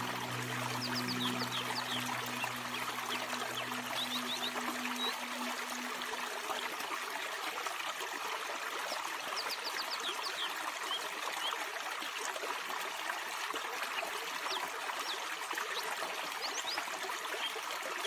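Small rocky stream trickling and splashing steadily over stones. Soft, low music notes fade out over the first few seconds, and short high chirps come in small groups now and then.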